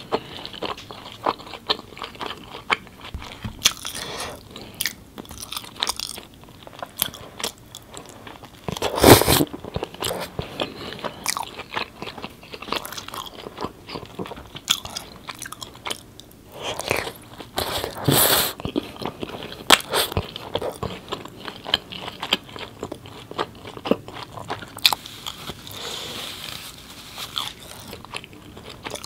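Close-miked eating sounds of a person biting and chewing naan bread dipped in curry, with many small wet mouth clicks. Two louder bursts stand out, about nine and eighteen seconds in.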